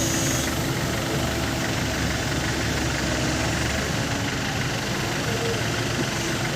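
Small six-wheel truck's engine idling steadily.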